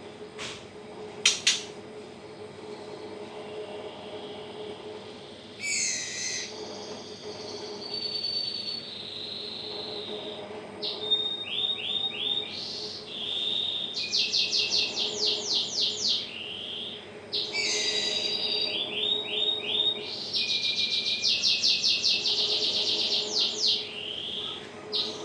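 White-rumped shama fledglings chirping in quick trilled runs, begging as they are hand-fed. The chirping starts about six seconds in and is louder in the second half. A steady low hum runs underneath, and there are two sharp clicks about a second in.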